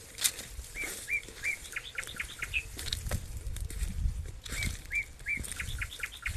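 A bird singing: a phrase of three hooked whistled notes followed by a quick run of short notes, given twice, a few seconds apart. Under it runs a low rumble with scattered clicks.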